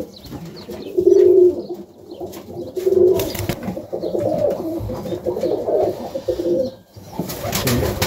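Serbian highflyer pigeons cooing in a loft, low wavering coos in several bouts, with a brief rustle near the end.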